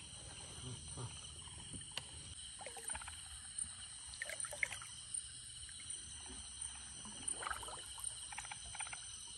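Steady high-pitched chorus of night insects, with short bursts of water splashing and sloshing a few times as someone wades through shallow water.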